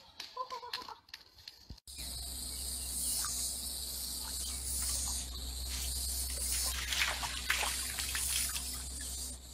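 Steady outdoor background starting about two seconds in: a high insect-like hiss over a low hum, with a few faint scrapes and knocks. Before it, a couple of seconds of faint clicks.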